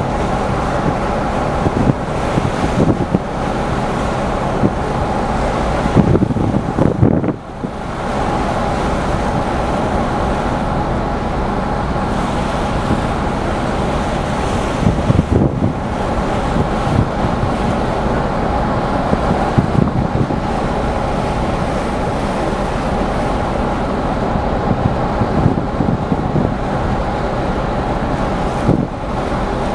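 Wind buffeting the microphone over the steady low rumble and hum of the car ferry Vitsentzos Kornaros's engines and machinery under way, with a brief lull about a quarter of the way through.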